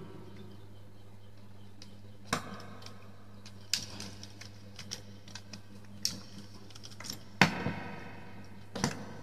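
Plastic wall socket and its wires being handled while a wire is fitted into the socket's terminals: about five short, sharp clicks and knocks spread a second or so apart, some with a brief ring after them.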